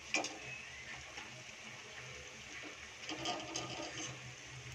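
Roti samosas deep-frying in hot oil in a kadhai: a faint, steady sizzle, with a few light clicks.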